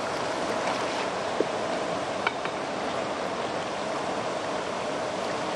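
Steady rush of water from the outflow below a river dam, with two short clicks about one and a half and two and a half seconds in.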